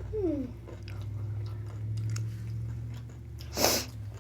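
Chewing of sushi close to the microphone, with small wet mouth clicks, over a steady low hum. A brief falling hum from a voice near the start, and a short loud hiss, like a breath, just before the end.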